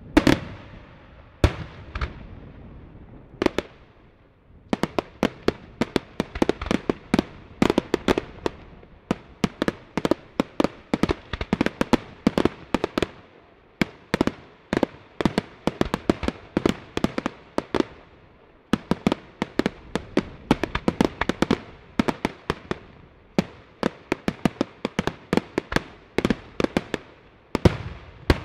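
Daytime fireworks: aerial shells bursting in rapid volleys of sharp bangs. A few scattered bangs at first, then dense, fast salvos from about five seconds in, with a couple of short lulls.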